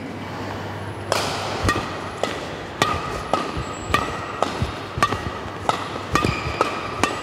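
Badminton rackets striking a shuttlecock in a fast flat drive rally: sharp, even hits about twice a second, starting about a second in, each with a brief ping from the strings.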